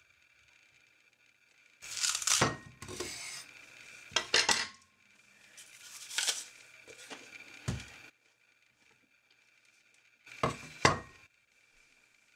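Meat cleaver chopping into an apple on a wooden cutting board: several sharp knocks, some in quick pairs, as the blade strikes through into the board.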